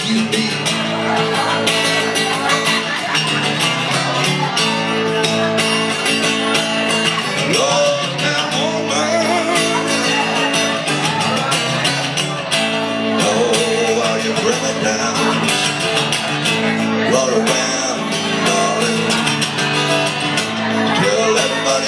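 Live blues band playing, with a male singer's voice over the band.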